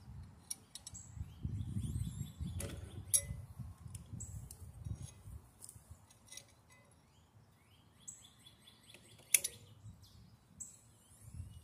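Pliers clicking and scraping on a refrigerator's copper tubing as it is wiggled loose, with one sharp click about nine seconds in. Birds chirp over a low rumble on the microphone.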